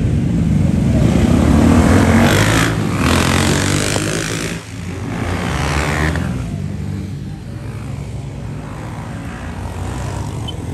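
Enduro dirt bike engines revving as riders set off one after another from the start. The bikes are loudest about two seconds in and again around six seconds, with a brief drop in between.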